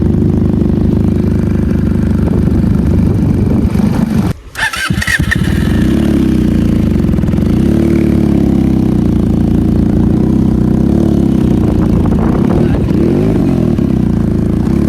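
Benelli motorcycle engine running, cutting out briefly about four and a half seconds in and starting again, then running on with the revs rising and falling.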